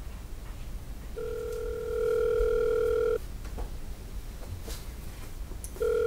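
Telephone ringback tone of an outgoing call: a steady two-second ring about a second in, then the next ring starting near the end.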